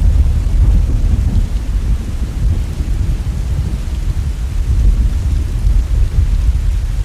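Steady rain with a deep, continuous rumble of thunder underneath.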